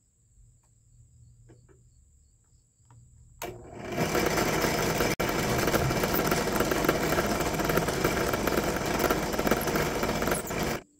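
Drill press motor running with a 9/64-inch bit boring slowly through packed manganese dioxide and aluminium rocket fuel in a PVC tube. It starts about four seconds in after a faint low hum, runs steadily, and cuts off abruptly just before the end.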